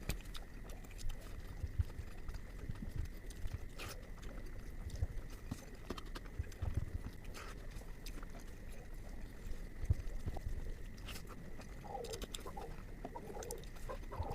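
Close-miked eating sounds of paneer butter masala, sped up: fast wet chewing and lip-smacking, a dense run of small clicks and soft thumps.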